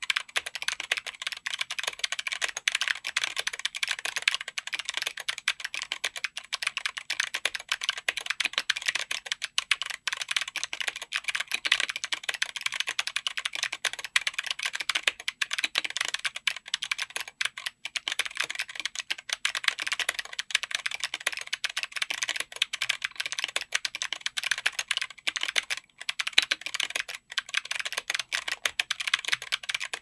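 Steady two-handed typing on a mechanical keyboard fitted with Zeal Clickiez 40g clicky switches, Oshid Amber polycarbonate OSA-profile keycaps, an FR4 plate and a Tofu60 aluminum case: a dense, unbroken stream of keystroke clicks.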